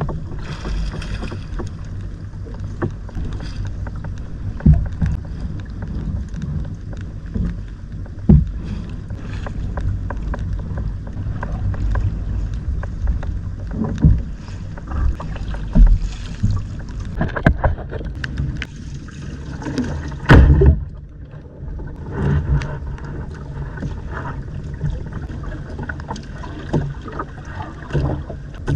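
Small boat's motor running steadily with a low hum, with wind and water noise and scattered knocks and thumps, the loudest about 20 seconds in.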